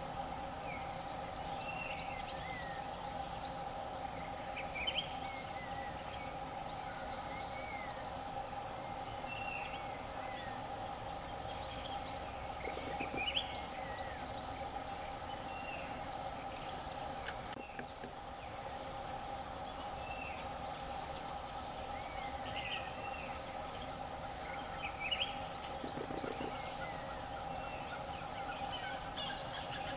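Forest ambience: a steady droning hum with frequent short bird chirps and whistles throughout, and a brief low rattle twice, about 13 and 26 seconds in.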